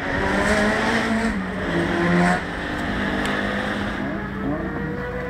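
Race car engine running hard at high revs, easing off about two and a half seconds in, then revving up again near the end.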